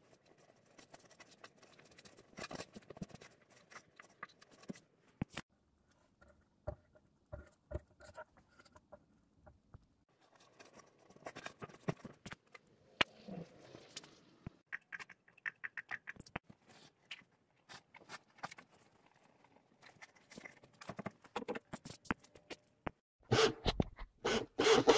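Scattered taps, scrapes and rustles of hands and tools working on an MDF subwoofer box, with a louder sputtering noise of wavering pitch near the end.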